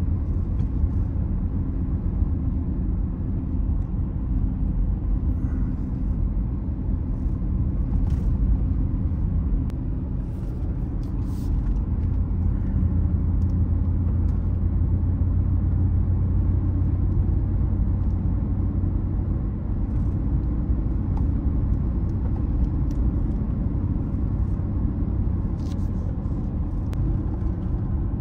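Steady low rumble of a vehicle driving on a paved road, heard from inside the cab: engine and tyre noise. It swells a little for several seconds partway through.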